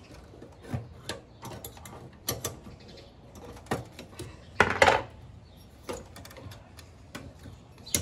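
Clicks, taps and rattles of plastic and metal parts being handled and pried inside an open server case, with a louder clatter a little before halfway through as a card assembly is pulled at.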